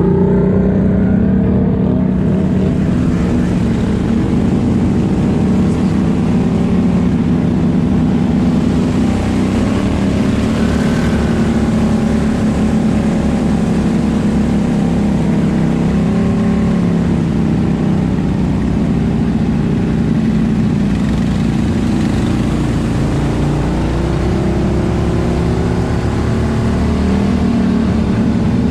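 ATV engine running close to the microphone as the quad rides along a wet, muddy trail at a steady pace, its pitch rising and falling only slightly.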